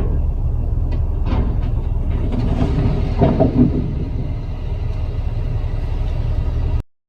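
Heavy vehicle's engine running low and steady, with a few knocks and clatters about a third of the way in. It cuts off abruptly near the end.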